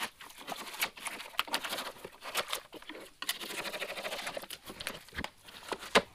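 Knife cutting and tearing through cardboard and cured expanding spray foam: irregular scraping, crinkling and tearing, with one sharper snap near the end.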